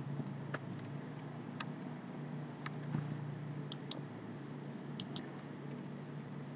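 A handful of scattered computer mouse clicks, two of them in quick pairs, over a steady low hum.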